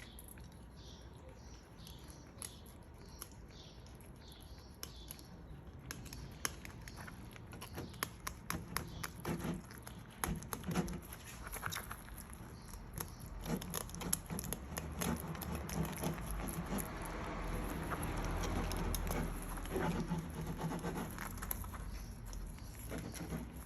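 Fillet knife cutting through a rainbow trout, with a run of small clicks and scrapes as the blade works along the bones; the scraping grows louder and denser in the second half.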